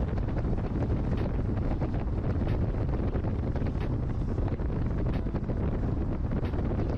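Wind buffeting the microphone of a moving camera vehicle, with a steady low road and engine rumble underneath.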